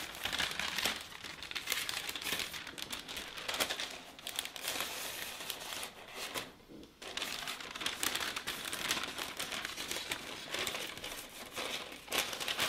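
Paper crinkling and rustling as a large printed sheet of shoebox wrapping paper is unfolded and handled, with a short pause about six and a half seconds in.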